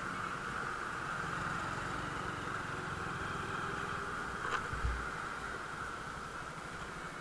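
Small commuter motorcycle engine running steadily while riding in traffic, with road noise, and a brief click followed by a low thump about four and a half seconds in.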